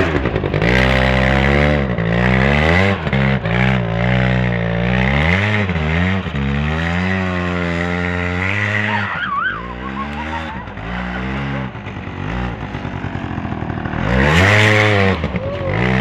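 Aeon Revo R100 quad's small engine revving up and down as it is ridden around on snow, with a brief wavering high sound about nine seconds in.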